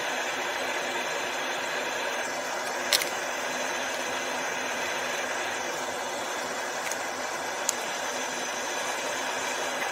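Fume-extractor fan running steadily, drawing air through its duct. There is one sharp click about three seconds in and a smaller one later.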